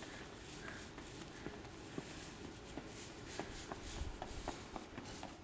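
Faint scattered taps and scuffs of a toddler walking on asphalt while pushing a small straw broom along the ground.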